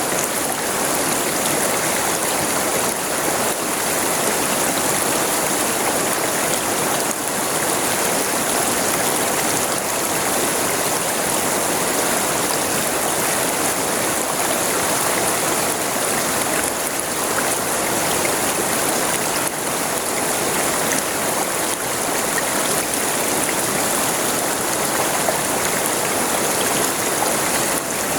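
River water flowing over rocks: a steady, even rush of flowing water with no breaks.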